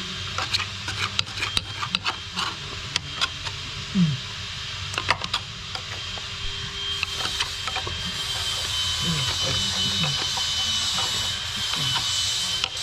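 Irregular metallic clicks, knocks and short squeaking scrapes of hand tools working on metal, digging packed debris out of a mulching head's bearing area. A faint steady high whine runs underneath.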